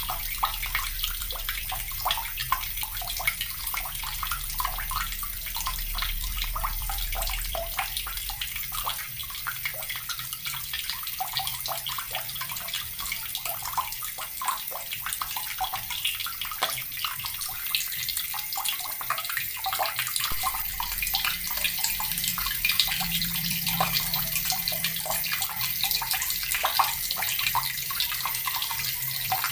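Water running from a tap into a plastic bucket: a steady splashing stream with many small plinks and drips.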